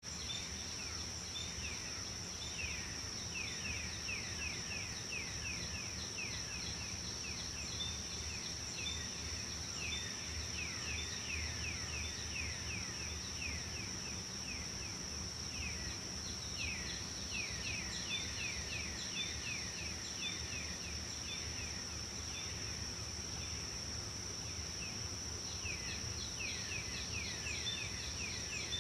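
Nature ambience: a steady high insect drone, with bursts of quick falling chirps that come and go every few seconds.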